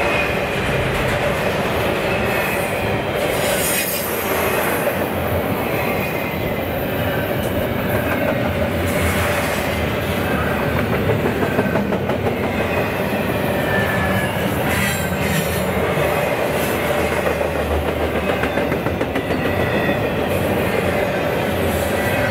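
A train's cars rolling steadily past on the rails, the wheels running over the track with faint, high squeals that slide in pitch.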